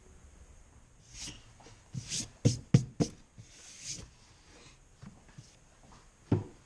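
Solid-wood cutting board of walnut and maple being handled and laid down on a workbench: a few scrapes and several wooden knocks, the three loudest in quick succession about two and a half seconds in, and one more knock near the end.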